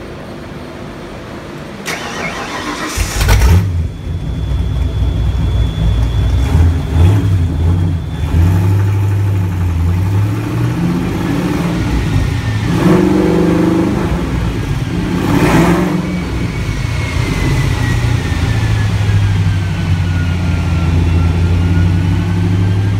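Ford 5.0 V8 of a Fox-body Mustang GT cranking and firing up about three seconds in, then idling with a few short revs.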